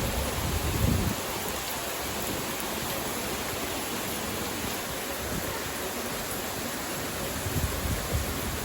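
Steady hiss of rain together with rushing river water and small waterfalls, with low rumbling surges about a second in and again near the end.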